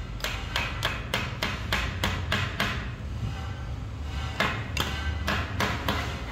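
Hand hammer striking a PVC conduit stub set in the concrete floor, in quick, even blows about three a second, with a short pause about three seconds in.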